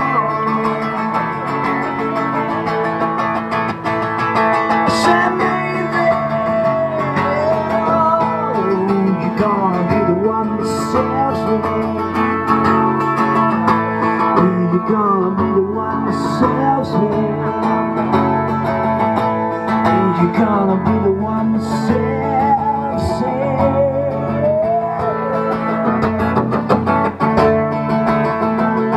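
A song with plucked guitar and a singing voice.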